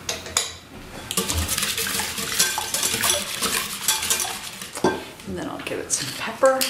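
Wire whisk beating sea salt into a liquid of eggs, tomato juice and white wine in a stoneware bowl: a rapid run of clinking strokes for about four seconds, then a single knock.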